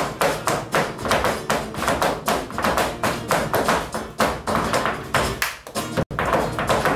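Flamenco dancer's footwork (zapateado): rapid heel and toe stamps, several a second, with a flamenco guitar faintly underneath.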